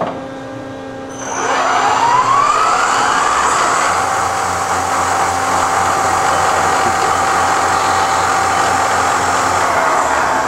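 Spindle of a 1983 Matsuura MC-760-V2 gear-head vertical machining center, driven by a Yaskawa AC spindle motor, spins up about a second in with a rising whine. It then runs steadily at speed with a constant whine. Near the end the whine begins to fall as the spindle slows.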